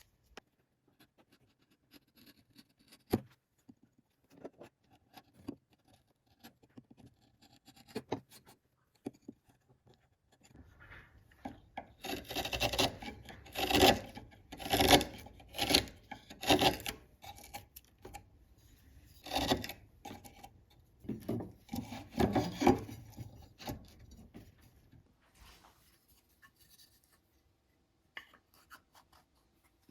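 Rasping hand strokes worked back and forth on the steel machete blade, a run of them about two a second from about ten seconds in until about 24 s. Before and after there are only scattered light taps and clicks.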